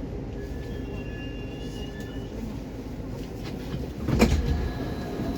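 A Baltiets metro train standing at a station, its onboard equipment humming steadily with a low rumble. One loud sharp clunk rings out about four seconds in.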